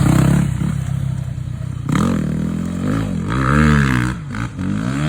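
Dirt bike engine revving up and down, its pitch rising and falling several times as the throttle is worked.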